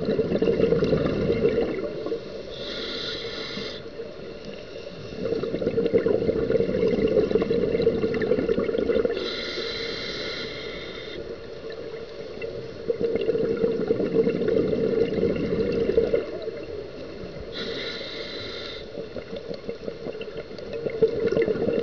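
Scuba diver breathing through a regulator in slow cycles about every seven to eight seconds: a short hiss of air drawn through the demand valve, then a longer burbling rush of exhaled bubbles.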